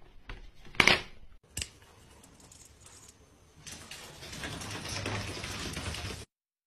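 A cat jumping out of a plastic laundry basket, knocking it: two sharp knocks about a second apart. Then a steady noise for a couple of seconds that cuts off suddenly.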